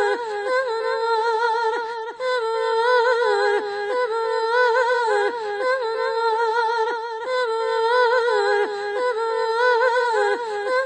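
A high, wordless voice humming long, wavering notes with vibrato, dropping briefly between notes.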